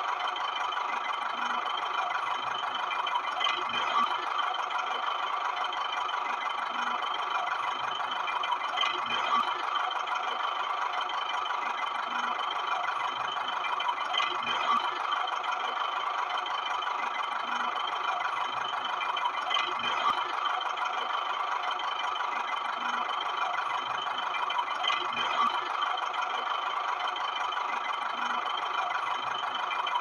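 Steady, rattling engine-like running sound that swells slightly about every five and a half seconds in a repeating pattern.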